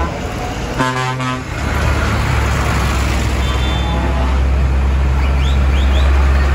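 A horn toots once, briefly, about a second in. Then a passing tractor's diesel engine rumbles low and grows louder as it draws up close.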